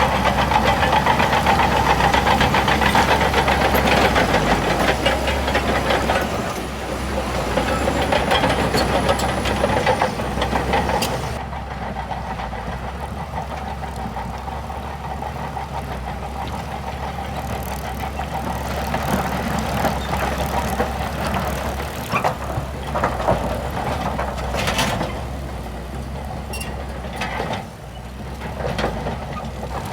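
Heavy diesel earthmoving machinery running, louder and harsher for the first eleven seconds, then dropping abruptly to a duller, steady engine sound with scattered clanks and knocks near the end.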